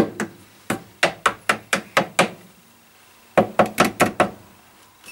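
Mallet tapping the pillar drill's electric motor to shift it and put a little more tension on the drive belt. Two runs of sharp taps: about nine over the first two seconds, then after a pause of about a second, seven quicker ones.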